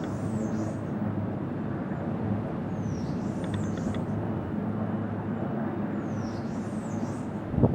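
A steady, even engine drone, with a short high falling whistle that comes back about every three seconds.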